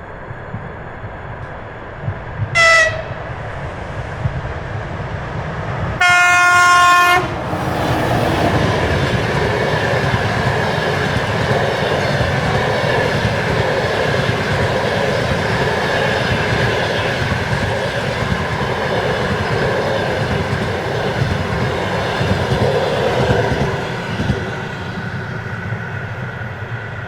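EP2K electric locomotive sounding its horn, a short toot and then a loud blast of about a second, as it hauls a passenger train past. The train passes with a steady rumble and clickety-clack of wheels on rail joints, fading out near the end.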